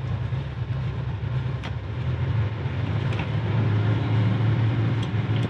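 Twin marine diesel engines of a Leopard 45 catamaran running steadily in reverse at about 1000 rpm, pulling back against the set anchor to test its holding; the drone grows a little louder partway through.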